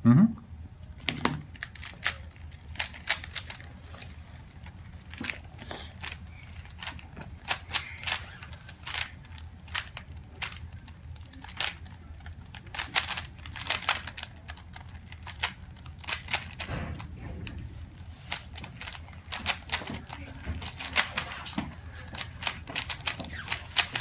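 A 3x3 Rubik's cube being turned fast by hand: irregular runs of sharp plastic clicks as the layers snap round, with short pauses between runs.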